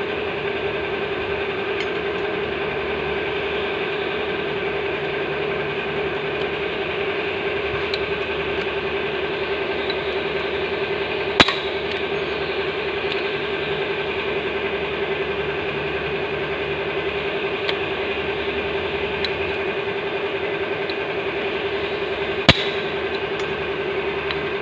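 Hand pop-rivet tool setting two blind rivets in sheet metal, each ending in one sharp snap as the rivet's mandrel breaks off, the two snaps about eleven seconds apart, with a few faint clicks of the tool between. A steady droning hum runs underneath.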